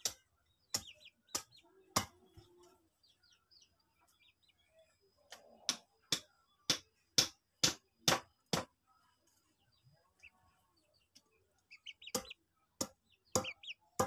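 A hand tool chopping wood on a block: sharp separate knocks, a few at first, then a run of about seven at roughly two a second, then four more near the end. Birds chirp faintly between the strokes.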